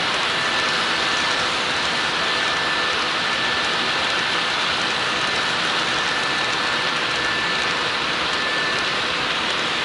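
Model freight train's refrigerator cars rolling past on the layout's track: a steady hissing rush of small metal wheels on rail, with a faint steady high whine running through it.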